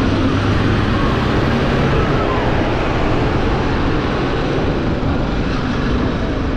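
Motorcycle riding at low speed: the engine running steadily under a constant rush of wind noise over the camera microphone.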